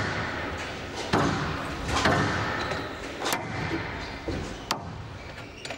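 Squash rally: the ball cracking off rackets and the front wall in five sharp hits about a second apart, each ringing briefly in a large hall.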